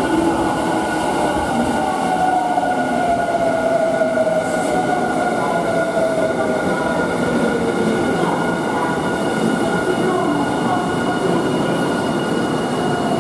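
Electric train running through a railway station, with a steady rumble and a whine that slides down in pitch over the first several seconds, over a steady high tone.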